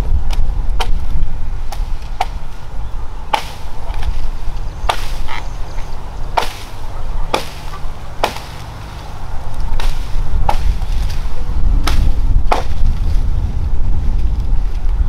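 Repeated chopping strikes at an uneven pace of roughly one a second, over a low steady rumble.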